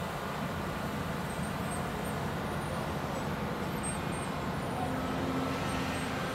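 Diesel engine and hydraulics of a barge-mounted dredging excavator running steadily while its clamshell bucket is lowered into the water, with a steady hum joining near the end.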